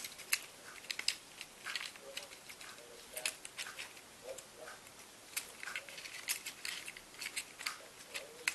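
Irregular light clicks and taps of small plastic parts being handled: the battery connector and battery cover of a small toy quadcopter being fitted and closed.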